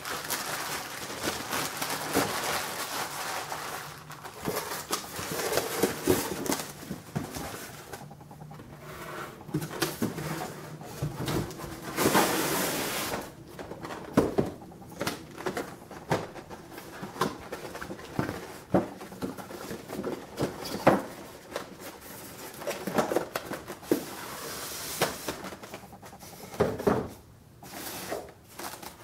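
Rustling of packaging and irregular clicks and light knocks as a die-cast model and its small parts are handled.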